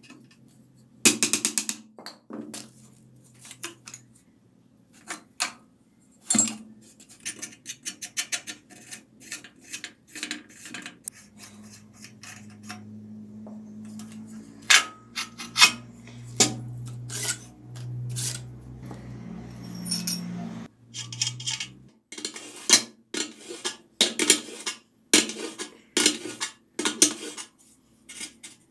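Irregular metallic clinks and knocks as steel bicycle frame parts and tools are handled and knocked together during disassembly.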